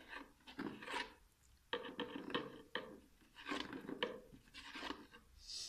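Metal spoon scraping and clinking against a spice container while scooping out ground spice: a run of short, irregular scrapes and taps.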